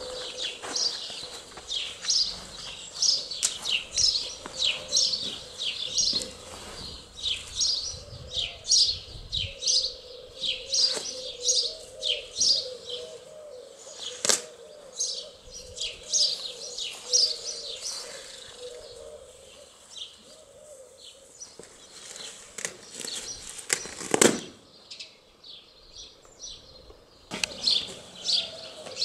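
Small birds chirping steadily in fast, high, repeated chirps that thin out for a few seconds past the middle and then pick up again. One loud, sharp crack comes about 24 seconds in.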